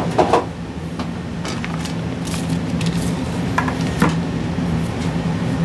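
Scattered light knocks and clicks of graphics card parts being handled and set down on a work surface, over a steady low hum.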